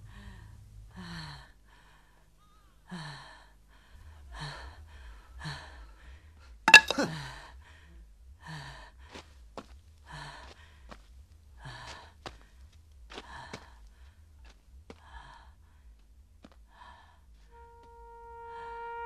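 A person's ragged, gasping breaths, short and uneven, about one a second, with a louder sharp gasp about seven seconds in. Soft sustained woodwind notes of film music come in near the end.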